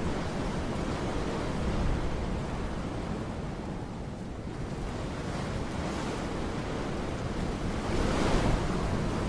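Wind blowing in a steady rush that swells into a stronger gust near the end.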